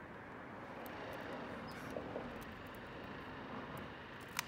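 Faint steady outdoor background hum with a few small faint ticks, then one sharp snap near the end.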